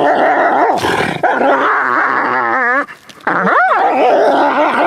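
A dog growling loudly, broken by a few whining calls that rise and fall in pitch, one of them wavering.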